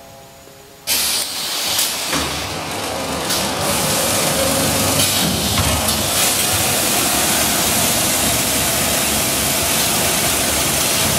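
Löwer FA4S polishing and finish-sanding machine running, its rotating abrasive brushes working a wooden window frame: a loud, steady rushing noise that starts suddenly about a second in, with a faint steady tone underneath.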